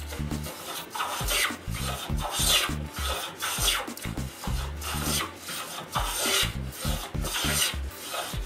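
Rider No. 4 bench plane taking shavings off a pine board: a rasping hiss with each push stroke, repeated in a steady rhythm of roughly one to two strokes a second.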